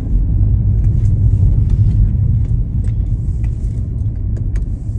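Steady low rumble of a car being driven, heard from inside the cabin, with a few light clicks and ticks scattered through it.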